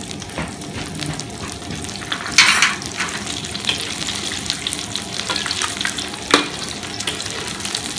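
Battered pieces deep-frying in hot oil in a large wok for their second fry, the stage that crisps the coating: a steady crackling sizzle, stirred with a metal skimmer. A brief louder burst of sizzling comes about two and a half seconds in, and a single sharp knock about six seconds in.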